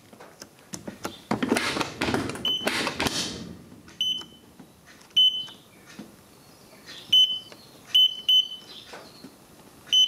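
Vulcan Dishlex dishwasher's electronic control panel giving a short, high single-pitched beep at each button press, about six beeps at uneven intervals. A couple of seconds of rustling or handling noise come in the first few seconds.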